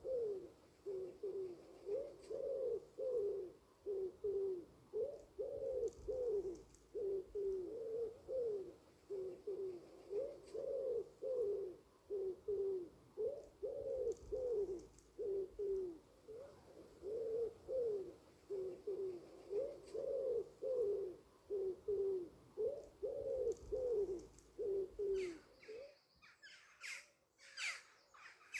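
A pigeon cooing over and over, low falling coos following one another in quick succession. A couple of seconds before the end the cooing stops and harsh, scratchy bird calls take over.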